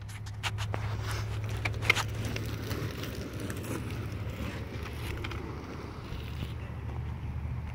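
Clicks and knocks of a phone being handled at the start of a recording, then a steady low outdoor rumble.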